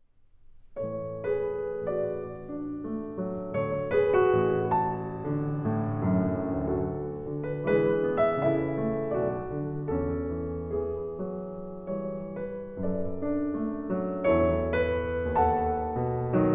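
Piano music, starting about a second in after a brief silence.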